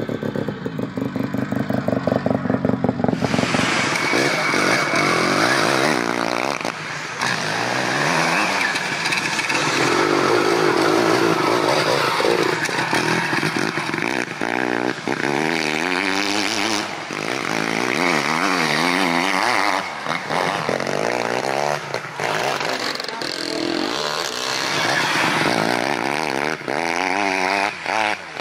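Dirt bike engines running loud, with an even pulsing beat for the first few seconds, then revving up and down again and again as the bikes are ridden hard under load.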